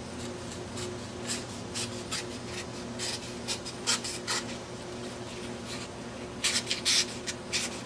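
A very sharp 1095 high-carbon steel Scout Dagger slicing through a sheet of paper held in the air. It makes short, crisp scratching cuts in spaced spurts, then a quicker run of cuts near the end. The blade goes through with little effort.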